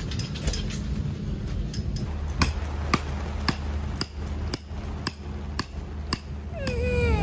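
Hammer blows on a tent peg at the foot of a gazebo leg, struck steadily about twice a second over a low rumble.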